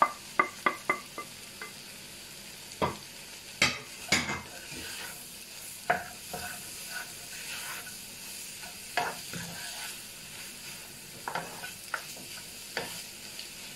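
Fried chicken pieces, egg and vegetables sizzling in a non-stick wok while a spatula stirs and scrapes through them. There is a quick run of spatula taps in the first couple of seconds, then scattered scrapes and knocks against the pan.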